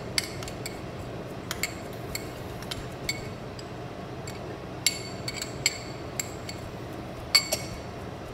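Metal spoon clinking against a glass jar as sofrito is scooped out, a dozen or so sharp, ringing clinks at irregular moments, the loudest about five and seven and a half seconds in. A steady low rush runs underneath.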